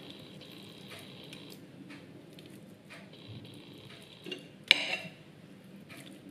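Kitchen knife scoring the skin of a boiled pork knuckle: quiet cutting with a few light clicks, and one sharp click a little under 5 seconds in as the blade knocks the plate.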